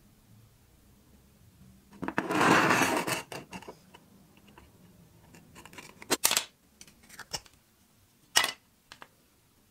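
A rusty old revolver handled on a workbench: a scraping, rattling stretch about two seconds in as the gun is moved and set down, then scattered sharp clicks and knocks as its loose grip panel is worked off the frame.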